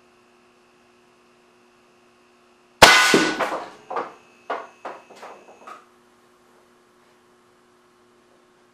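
Air cannon firing a small rubber ball out of its 1-inch barrel at a CRT television: about three seconds in, one loud sharp bang of the shot and the ball striking the glass screen, ringing briefly, then several fainter knocks over the next few seconds. The CRT glass does not break.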